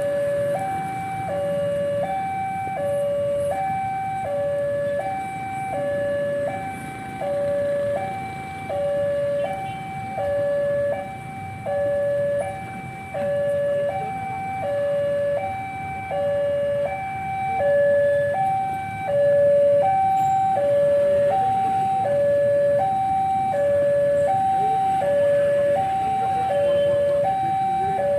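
Railway level-crossing warning alarm sounding its electronic two-tone signal, stepping between a higher and a lower tone about once a second. It means the barriers are down and a train is about to pass. A low rumble runs underneath and grows louder about two-thirds of the way in.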